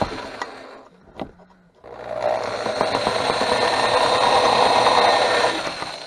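Drill press running as its bit cuts through a metal beer bottle cap. The motor winds down over the first second, a single click comes about a second in, and the drill starts again about two seconds in. It runs steadily for about three and a half seconds while cutting, then winds down near the end.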